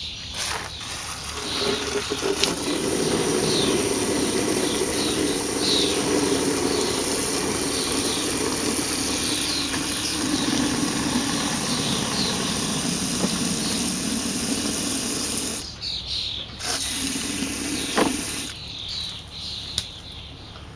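Running water pouring steadily into a container, filling it; the flow stops about three-quarters of the way through, runs again briefly, then stops.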